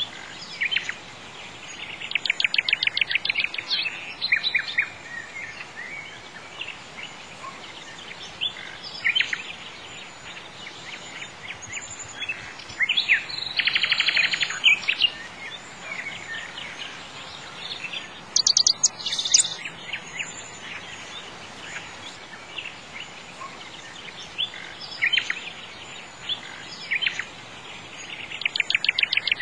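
Birds singing and chirping: bursts of rapid high trills a few seconds apart, with single chirps in between, over a steady faint hiss.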